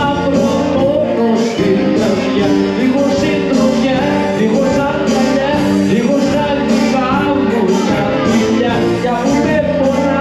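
Live Greek band music led by bouzouki, with a steady beat.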